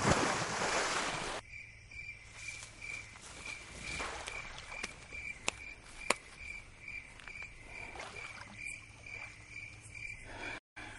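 Crickets chirping steadily, a high pulsing chirp repeating about three times a second. A loud rush of noise fills the first second and a half, and a few sharp clicks come near the middle.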